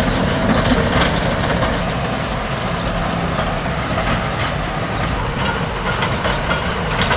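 Diesel engines of a Komatsu bulldozer and a Cat D8R crawler dozer running with a steady low rumble during a pushing contest, with scattered faint clicks.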